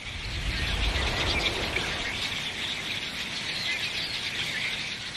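A huge flock of red-winged blackbirds calling all at once, a dense high chatter of many birds, with a low rumble underneath that is strongest in the first second.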